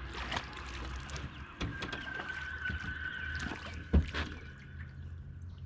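Water splashing and sloshing beside an aluminum jon boat as a hooked flathead catfish is reeled in at the surface, with scattered clicks and a sharp knock against the boat about four seconds in.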